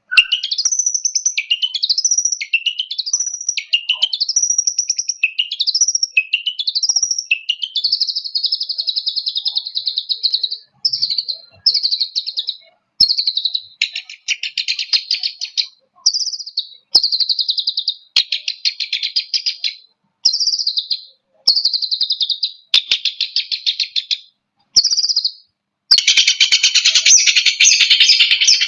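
Long-tailed shrike (cendet) singing. It starts with a run of upward-sweeping notes, about one every 0.8 s, then a sustained trill, then short bursts of rapid harsh chattering with brief gaps between them, the densest chattering near the end.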